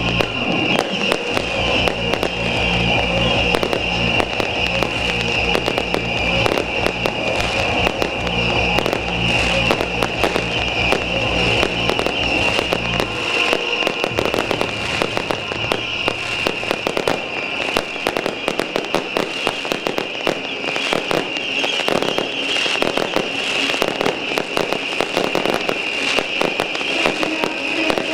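Beehive rocket battery (fengpao) firing: a dense, continuous barrage of bottle rockets whizzing and cracking, over a steady high hiss.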